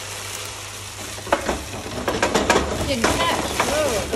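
Brandy sizzling in a hot frying pan of onions and mushrooms over a gas flame. About a second in the sizzle grows louder, with clattering as the pan is worked to set the brandy alight for a flambé.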